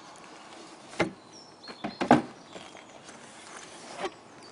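Cardboard packaging and a hard carrying case being handled and pulled apart, giving a few sharp knocks and scrapes; the loudest knock comes about two seconds in.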